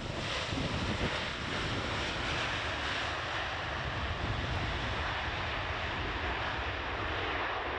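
Jet engine noise from a Boeing 747-400F freighter rolling out on the runway just after touchdown. It is a loud, steady rushing noise that swells about a third of a second in and then holds.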